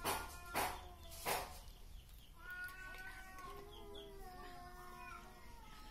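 Kitten meowing: three short, loud mews in quick succession within the first second and a half, followed by softer, wavering pitched calls in the background.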